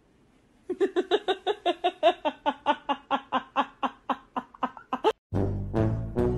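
A person laughing in a long run of quick, even bursts, about five a second. After a sudden cut near the end, a short stretch of music with a heavy bass.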